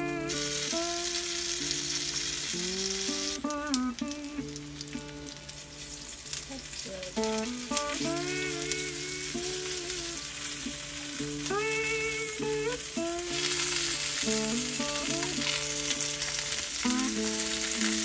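Hotdogs and sausages sizzling in oil in a frying pan as they are turned with metal tongs; the sizzle grows louder about two thirds of the way through. A light background music melody plays over it.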